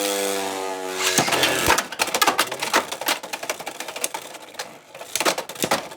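Beyblade X spinning tops battling in a plastic stadium. A steady whirring hum, falling slightly in pitch, ends about a second in. After it come rapid, irregular clicking and clattering as the tops clash and rattle against each other and the stadium.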